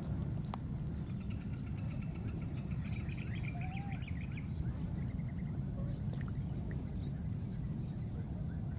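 Outdoor ambience: a steady low rumble with small birds chirping and trilling in the background, most busily from about one to four and a half seconds in.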